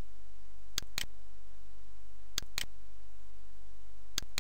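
Computer mouse button clicking: three quick double clicks, each pair about a second and a half after the last, over a steady low hum.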